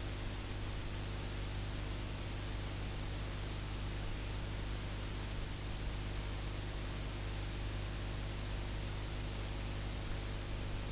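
Steady hiss with a low, even hum underneath and nothing else: the bare noise floor of an analogue video recording's silent title sequence.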